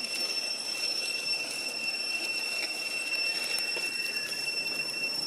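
A steady, high-pitched insect drone, one unbroken whine held at a constant pitch, over a soft outdoor background hiss.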